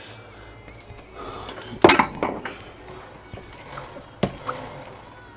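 Metal hand tools clinking and clanking as a spanner is handled and set down, with one loud ringing clank about two seconds in and a sharp knock about four seconds in.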